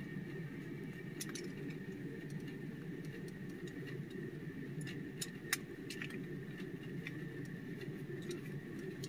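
A handful of faint, sharp metal clicks as star-head (Torx) screws are turned down with a T-handle driver on a truck's shift lever, the sharpest about five and a half seconds in. Under them a steady low hum fills the cab.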